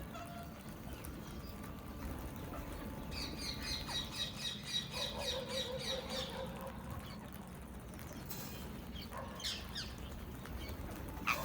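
Indian ringneck parakeets calling: a fast run of repeated high chattering notes lasting about three seconds, then a few short, sharp shrieks near the end, over a steady low background rumble.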